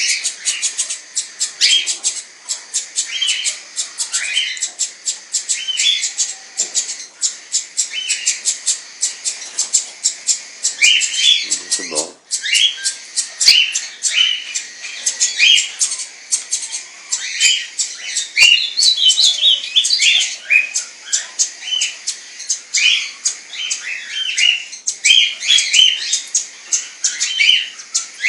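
Parrot-family birds calling: a continuous fast run of short, high, scratchy chirps, several a second, with no break. About twelve seconds in there is one brief lower squawk.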